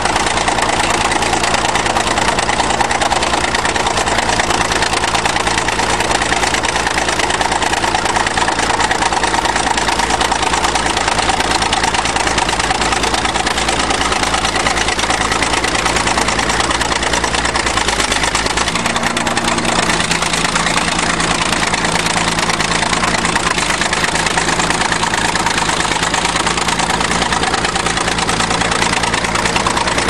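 Old crawler bulldozer's engine running steadily under load while it pushes a stuck minivan through snow drifts. The engine note shifts slightly about two-thirds of the way through.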